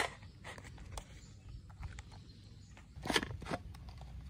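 Plastic toy water gun being handled, with faint light clicks and a short run of louder plastic clicks and knocks about three seconds in.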